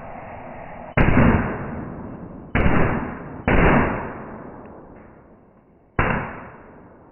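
Four firecrackers going off, one about a second in, two close together around the middle and one near the end, each bang dying away slowly over a second or more.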